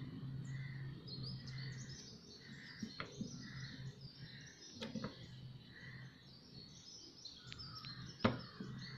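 Faint background of small birds chirping, with a soft note repeating about every two-thirds of a second, over a steady low hum. A few brief clicks break in, the sharpest near the end.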